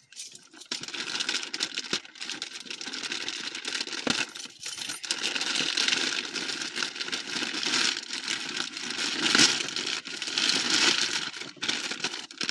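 Packaging being torn open and handled: a dense, continuous run of small crinkling and rustling crackles, louder in surges after the first couple of seconds.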